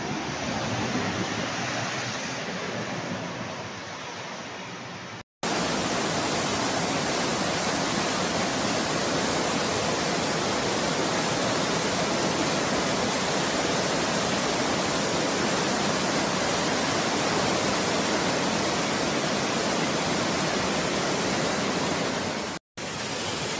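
Floodwater rushing down a street in a steady, loud, even rush. For the first few seconds it is quieter and duller, from a different recording. After a brief dropout about five seconds in, it runs louder and brighter.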